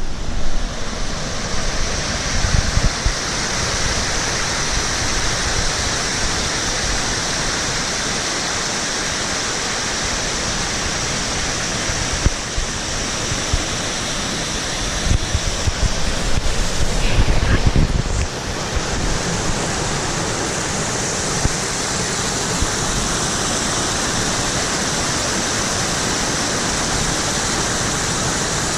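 Waterfall close to the microphone: a loud, steady rush of falling water, with a few low rumbles now and then, the longest about two-thirds of the way through.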